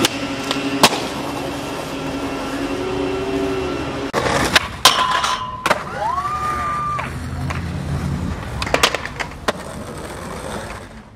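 Skateboard wheels rolling on concrete, with sharp clacks of the board popping and landing, the loudest a little under a second in and around five and nine seconds in. A short whistle-like tone rises and falls about six seconds in.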